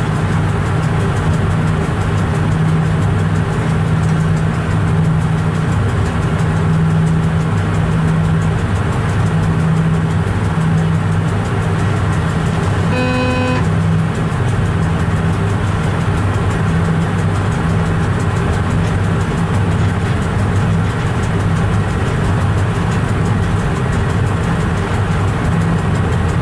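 Steady low hum inside a train driver's cab, with one short horn toot about halfway through.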